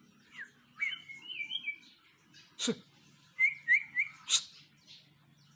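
White-rumped shama singing after its moult: short clear whistled notes, several sliding quickly down in pitch, in two phrases, about a second in and again about three and a half seconds in. Two sharp, harsh call notes cut in, the first just under three seconds in and the second at the end of the later phrase.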